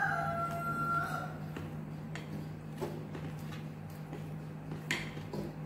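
A rooster crowing, its held note ending about a second in, then faint scrapes and a few light taps of a plastic spatula spreading sauce over dough in a metal pan, over a low steady hum.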